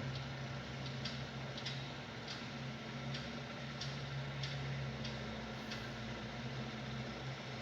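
Bulldozer's diesel engine running with a steady low hum, overlaid by sharp, regular clicks about one and a half times a second.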